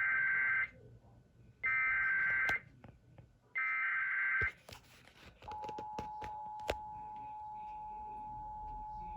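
Emergency Alert System SAME header: three bursts of rasping digital data tones, each about a second long and about two seconds apart. About five and a half seconds in, the steady two-tone EAS attention signal begins, with a few faint clicks as it starts.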